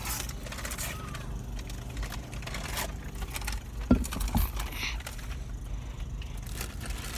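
Steady low rumble inside a car's cabin, with a phone being handled against the seats and console: rubbing and clicks, and a thump about four seconds in.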